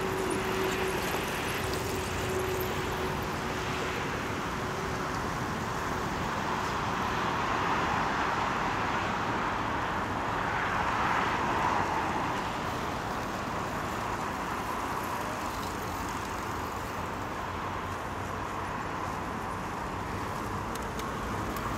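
Steady road noise as a long column of bicycles rolls past on asphalt, with a hum of motor traffic beneath it; it swells a little about ten seconds in.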